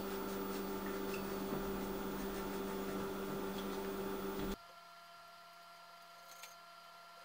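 MakerBot Replicator 2 3D printer humming steadily with an electrical tone while it holds the extruder over the build plate. The hum cuts off suddenly about four and a half seconds in, leaving faint room tone with a small click.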